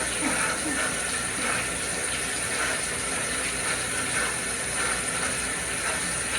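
Water running steadily, a continuous rushing hiss.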